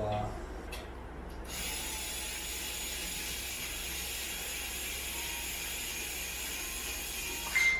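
Small power screwdriver driving a screw into a metal rack, its motor running steadily for about six seconds from about a second and a half in. It stops near the end with a short, louder whine.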